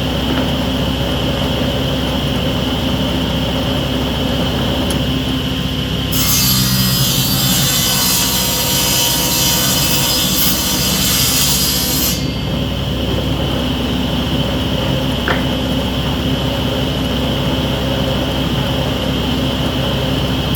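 Table saw running steadily with a motor hum. From about six to twelve seconds in, a board is ripped to width through the blade, adding a loud hiss over the hum.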